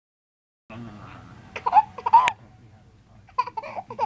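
Baby squealing with laughter in short high-pitched bursts as an adult blows a raspberry on his belly, the raspberry a low buzz just under a second in.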